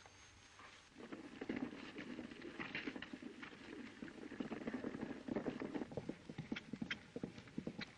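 Hoofbeats of a herd of horses running at a gallop: a dense, irregular clatter of hooves that starts about a second in.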